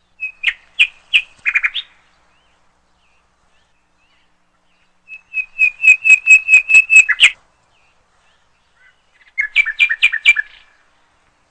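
A bird calling in three bursts of quick, sharp, repeated chirps: a short bout near the start, a longer and louder run of about ten notes in the middle, and a shorter bout near the end.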